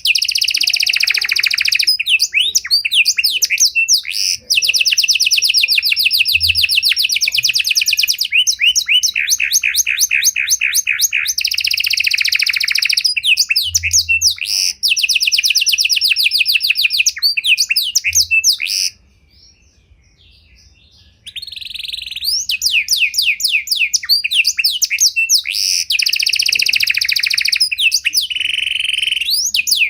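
Pied ('panda') domestic canary singing a long, varied song of fast trills and rolling repeated notes. The song breaks off for about two seconds roughly two-thirds of the way through, then resumes.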